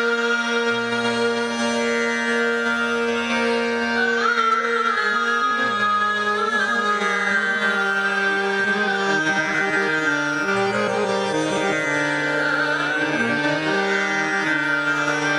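Hindustani classical vocal in raga Rageshree. A woman's voice holds one long steady note, then from about four seconds sings gliding, ornamented phrases. A harmonium follows her note by note over a tanpura drone.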